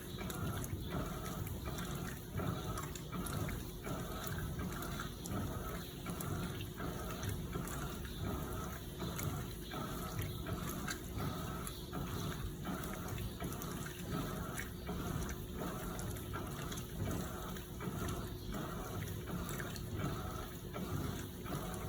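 Electrolux LPE16 top-loading washing machine churning a heavy load of blankets in water, the water sloshing in a steady rhythm of about two strokes a second over a faint constant motor hum.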